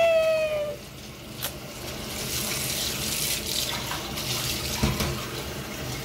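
Kitchen tap running into a stainless steel sink, washing spilt tea down the drain while a ceramic mug is rinsed under the stream. A held, slightly falling tone fades out in the first second.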